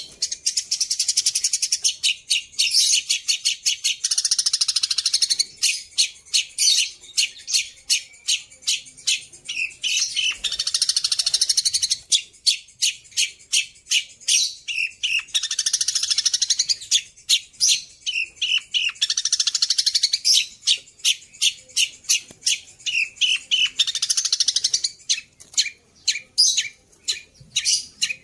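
Caged long-tailed shrike (pentet) singing a loud, fast run of sharp, high repeated chips broken by several buzzy trills, its song filled with mimicked sirtu calls.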